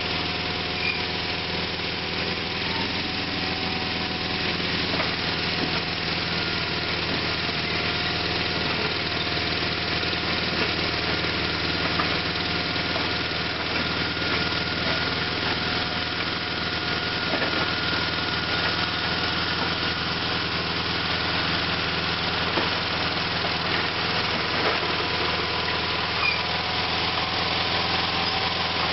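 Sears SS/16 garden tractor's Onan twin-cylinder engine running steadily while the tractor pushes dirt with a dozer blade.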